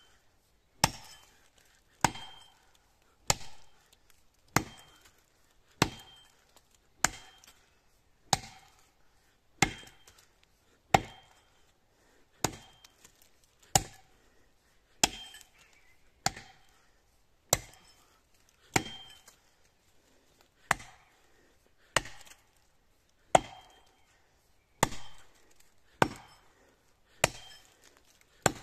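Axe blows chopping into the trunk of a standing pine tree, a steady rhythm of sharp strikes about one every second and a quarter, each biting into the notch.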